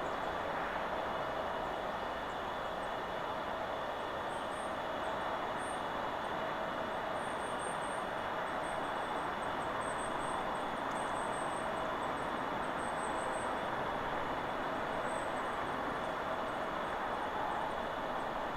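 Steady rushing of wind through forest trees, with faint, high, short bird chirps scattered through the middle of it.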